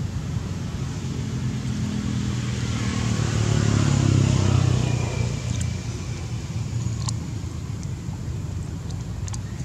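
A motor vehicle passing by: its engine grows louder to a peak about four seconds in, then fades away over a steady low rumble.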